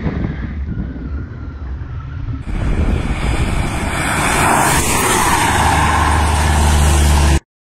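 Wind and road rush from an SUV driving at highway speed. After a sudden change, heavy wind buffets the microphone as SUVs speed past on the highway, growing louder until the sound cuts off abruptly near the end.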